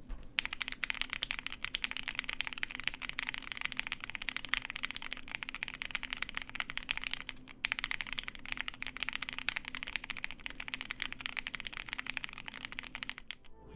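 Fast typing on a Cannon Keys Bakeneko60 mechanical keyboard with lubed, filmed Lavender switches and PBT keycaps: a dense run of key strikes with a bit of a clack, broken by a short pause about halfway through.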